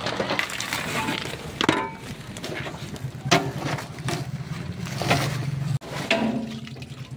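Sharp knocks and cracks of wood, a few at a time, over a steady low hum.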